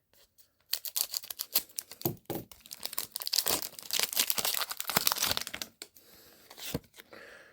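Foil wrapper of a Pokémon TCG booster pack crinkling and tearing as it is ripped open by hand, a rapid run of crackles that dies down about six seconds in.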